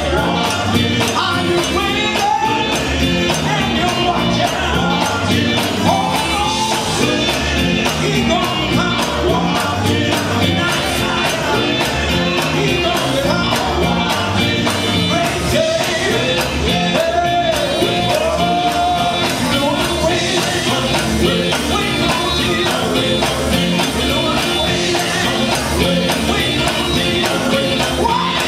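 Live gospel quartet singing lead and harmony over a band of electric guitar, bass guitar and drum kit, playing a steady, driving beat.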